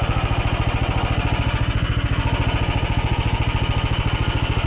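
MTZ walk-behind tractor engine running steadily under load with an even, rapid beat as it pulls a potato planter along the furrow in first gear.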